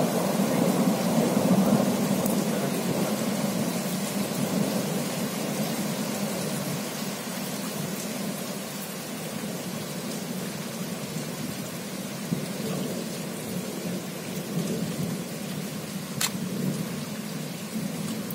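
Thunder rumbling and slowly dying away over several seconds, over steady rain. A single sharp tick comes near the end.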